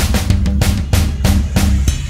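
Background music with a steady drum-kit beat, about three hits a second.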